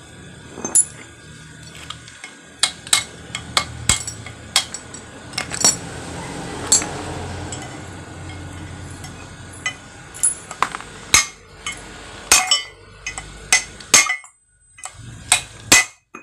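Hammer striking a steel drift, metal on metal, seating a new steering-head bearing race on the steering stem of a Kawasaki Barako motorcycle: a string of sharp, irregular clinks with short pauses between them.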